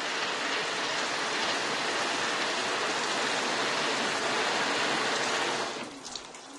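Heavy rain pouring down steadily, then stopping abruptly about six seconds in, leaving a few faint ticks.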